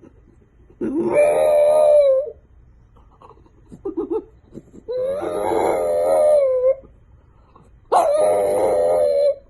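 A dog howling: three long, pitched calls of about a second and a half each, spaced a few seconds apart.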